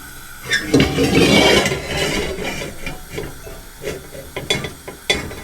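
A pot being shifted from one burner to another on a gas stove: a loud rushing hiss starts about half a second in and lasts a second or so, followed by scattered clanks and knocks of metal on the stove grate.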